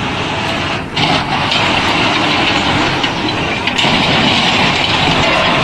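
Loud running noise of heavy vehicle engines and machinery, which changes character about a second in and again near four seconds in.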